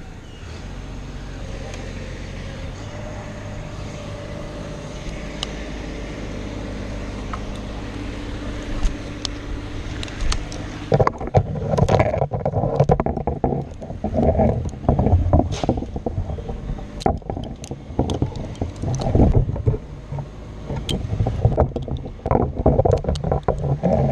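A low, steady engine hum, then from about halfway loud irregular rustling and knocking close to the microphone.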